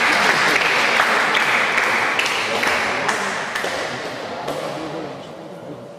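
Spectators applauding the end of a badminton rally, the clapping thinning and dying away over the last few seconds.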